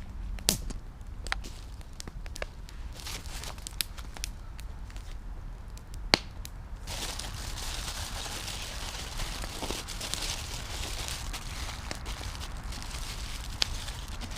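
Wood campfire crackling, with scattered sharp pops, the loudest about halfway through. A steady hiss comes in about halfway through.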